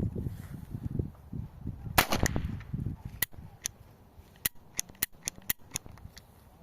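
Sharp metallic clicks from handling an Erma-Werke EP555 .25 ACP pocket pistol. A quick cluster of clicks comes about two seconds in, then about eight single clicks follow a fraction of a second apart.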